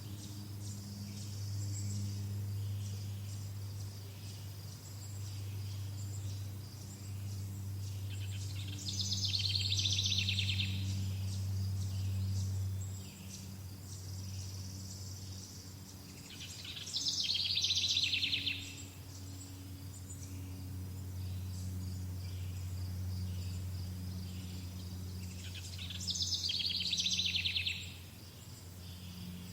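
Summer nature ambience: a buzzy, rapidly pulsed trill sounds three times, about every eight or nine seconds, over a steady high chirring of insects and a low steady hum.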